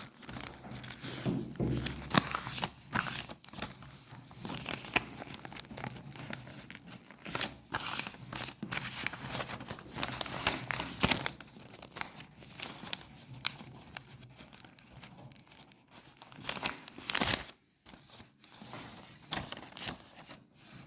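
Craft material being handled, crinkling and tearing in irregular rustles and sharp crackles, the loudest burst about 17 seconds in.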